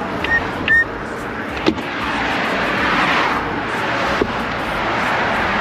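Highway traffic passing close by, a vehicle's rush swelling and fading about halfway through. A short series of high, evenly spaced beeps sounds in the first second, and there are a couple of single clicks.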